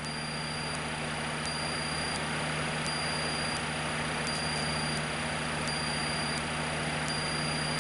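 Cessna 152's four-cylinder Lycoming piston engine and propeller running steadily in level cruise, heard from inside the cockpit.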